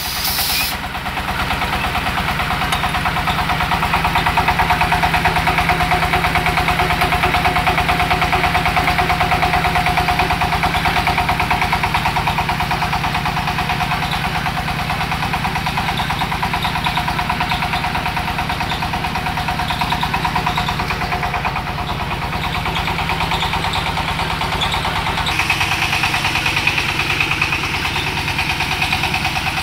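Brick extrusion press driven by its 24 HP diesel engine, running steadily with a fast, even engine beat; the tone shifts slightly near the end.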